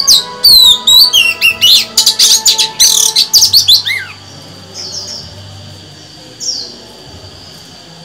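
Female oriental magpie-robin singing: a loud, rapid run of varied whistles and chattering notes for about four seconds, then only an occasional single down-slurred whistle.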